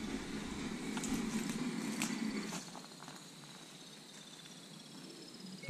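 Faint night insects trilling in rapid, high pulsed tones, over a low rustling noise that drops away about two and a half seconds in, with a few light clicks.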